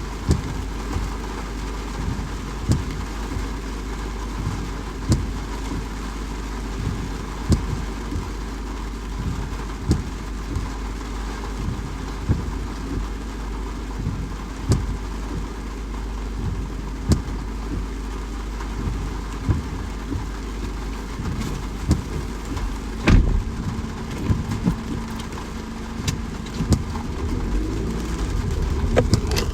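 Steady rain falling, with heavy single drops striking a surface irregularly, roughly one every second, over a constant low rumble. One drop lands louder than the rest a little past the three-quarter mark.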